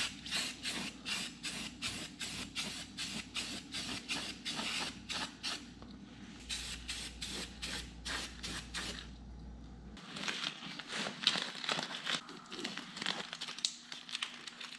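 Aerosol spray paint can spraying in many short bursts of hiss.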